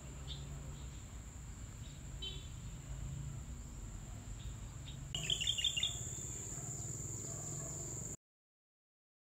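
Birds chirping outdoors: a few faint chirps at first, then a quick run of about five chirps some five seconds in, over a steady low hum and a thin high whine. The sound cuts off suddenly near the end.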